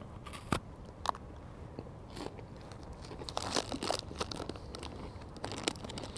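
Biting and chewing a Coffee Crisp wafer chocolate bar up close: scattered crisp crunches, several in a quick cluster a little past the middle.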